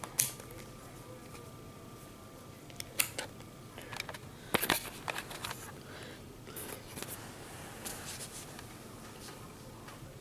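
Faint scattered clicks and handling rustles from working a multimeter: the rotary range switch being turned and the test probes handled, with a small cluster of sharper clicks in the middle.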